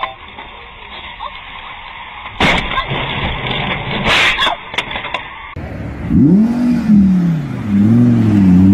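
Car collision heard through a dashcam: a sharp impact about two and a half seconds in, then a second crash with a longer scrape around four seconds. After that, an Audi R8's engine revs up and down several times, the loudest part.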